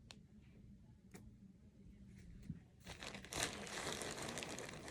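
Packaging crinkling and rustling as it is handled, starting about three seconds in, after a couple of faint clicks.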